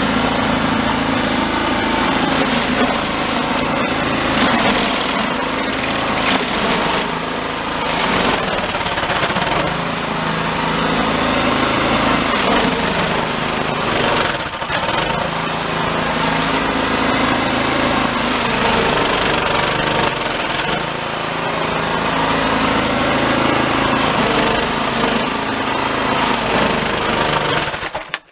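Toro Snowmaster 724 QXE snowblower running under load as it cuts through deep, heavy, refrozen snow and throws it out of the chute. The engine note rises and falls as the load changes, and the sound cuts off suddenly near the end.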